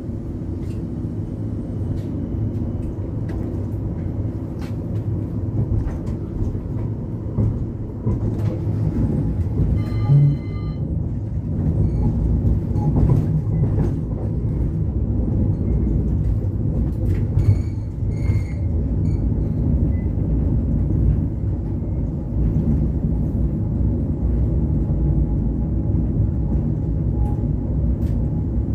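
CAF Urbos tram running along street track, heard from inside the driver's cab: a steady low rumble of wheels and running gear with scattered clicks. A brief ringing tone sounds about ten seconds in.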